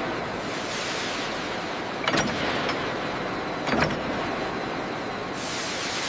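Steady, loud hissing noise with two sharp knocks, about two seconds in and again near four seconds.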